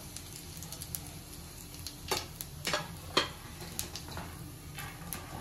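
Carom seeds (ajwain) and dried red chillies crackling in hot mustard oil in a kadhai: a steady patter of small pops, with a few louder snaps about two to three seconds in.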